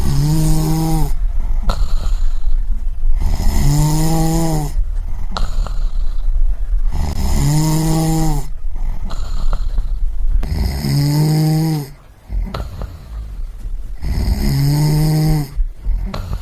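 A person snoring in a slow, regular rhythm. There are five snores, about three and a half seconds apart, each a steady buzzing tone lasting about a second, with a low rumbling breath in between.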